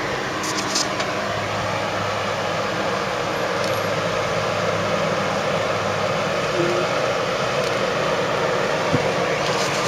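Nissan Frontier Pro-4X pickup's V6 engine running steadily at low revs while crawling down a rock ledge off-road, under a steady hiss, with a few faint clicks.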